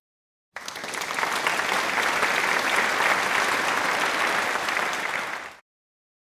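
Applause, fading in about half a second in and fading out about five seconds later.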